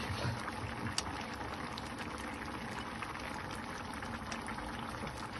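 Seafood paella simmering in a wide pan: a steady bubbling with a fine crackle, and one sharp click about a second in.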